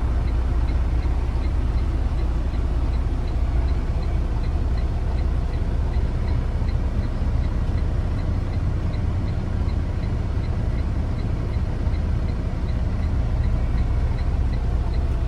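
Truck engine running with a steady low rumble, heard from inside the cab, with a faint, regular ticking throughout.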